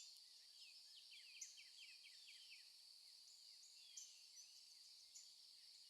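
Faint nature ambience: a bird chirping in a run of quick falling notes in the first couple of seconds, with a few fainter chirps later, over a steady high insect drone.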